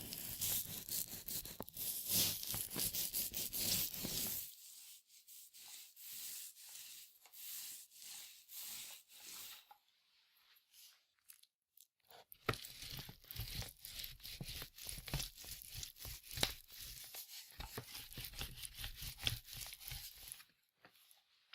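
Paint roller rolling over a surface, the loaded roller cover giving a sticky crackling hiss. There are two stretches of rolling: the first thins into scattered crackles after about four seconds, then a brief pause, then a second stretch that stops shortly before the end.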